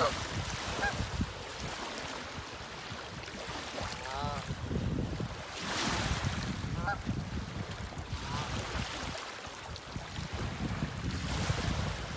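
Waterfowl giving a few short, scattered calls, including a quick run of calls about four seconds in, over wind rumbling on the microphone.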